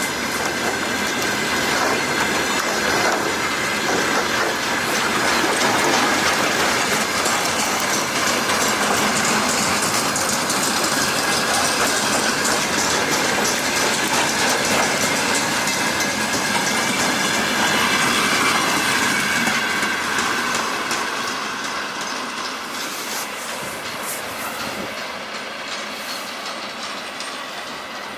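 Train hauled by a 2TE116 diesel locomotive passing: wheels clacking over the rail joints, with a steady high whistle from the locomotive's turbocharger. The sound fades gradually after about twenty seconds.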